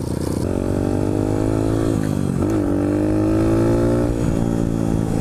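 2001 Honda XR100R's single-cylinder four-stroke engine heard from on board, pulling in gear. Its pitch climbs, dips at a shift about two seconds in, climbs again, then eases off near the end.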